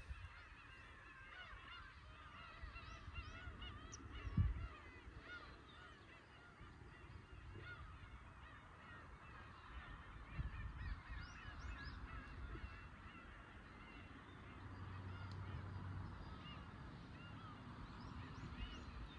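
A large flock of black-tailed gulls calling continuously, many short calls overlapping. A loud low thump comes about four seconds in.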